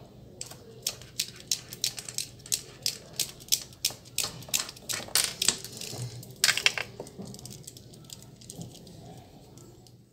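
Kuka (coquilla nut) tesbih beads clicking against one another on their string as a hand turns and slides them. A rapid, irregular run of sharp clicks, roughly three or four a second, that thins out after about seven seconds.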